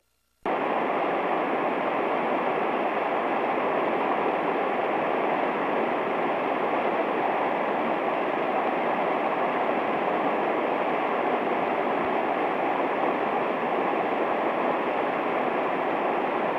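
Steady rush of a fast-flowing mountain stream, starting after a brief gap of silence.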